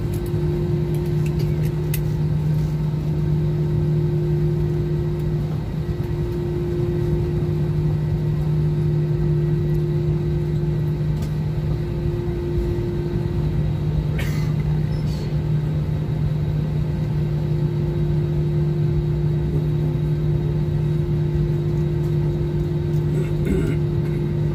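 Airliner cabin noise: a steady engine drone with a low, even hum over a rumble, unchanging throughout, with a few faint clicks about halfway through and near the end.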